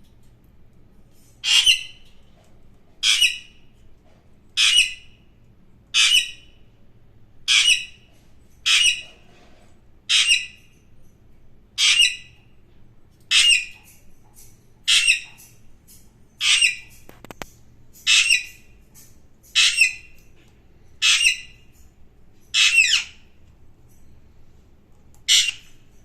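Alexandrine parakeet giving loud, harsh screeching calls, one short squawk about every second and a half, some sixteen in a row with a slightly longer pause before the last.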